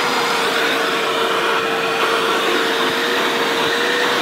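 Milwaukee M18 cordless vacuum running steadily under suction: a constant motor whine over the rush of air through the hose.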